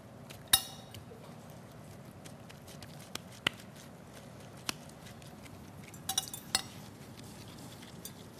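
A metal spoon clinking against a bowl while filling is scooped out: one ringing clink about half a second in, a few light taps in the middle, and two more ringing clinks around six seconds in.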